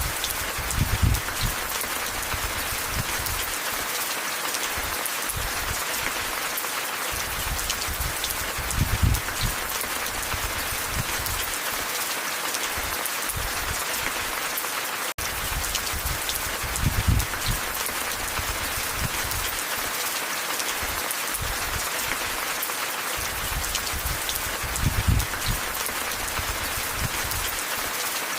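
Steady rain hiss. Low rumbles swell up about every eight seconds. The sound drops out for an instant near the middle.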